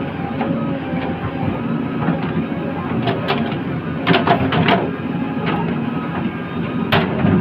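JCB 3DX backhoe loader's diesel engine running steadily, with sharp metallic clanks and rattles a little past the middle and again near the end.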